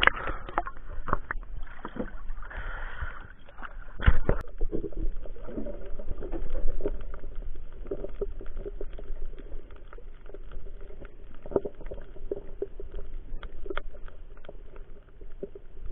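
Sea water splashing and sloshing around the camera at the surface, with a sharp knock about four seconds in. After that, the muffled sound of the camera under water, with scattered small clicks and ticks.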